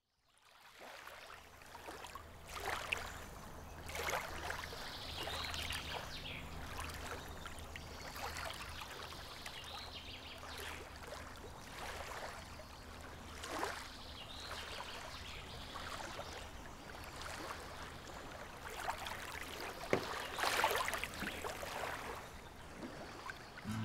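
River water lapping and trickling close by, fading in at the start, with irregular small splashes and a faint low steady hum underneath. About twenty seconds in comes a cluster of louder splashes from canoe paddles.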